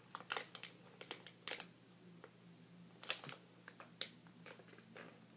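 Small plastic candy packet crinkling as it is handled, in scattered sharp crackles. A faint steady low hum runs underneath.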